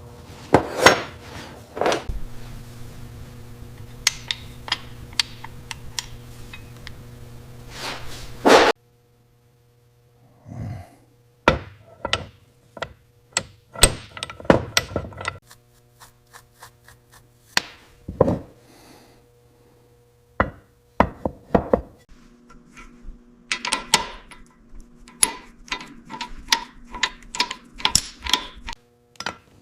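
Workshop tool work: a string of sharp knocks, taps and clicks, some in quick runs of several a second, over a steady machine hum that cuts out and changes at edits.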